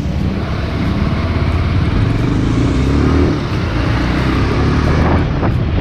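A Bajaj Pulsar 180's single-cylinder engine running while riding, under a steady rush of wind and road noise, with a brief rise in engine pitch about two to three seconds in.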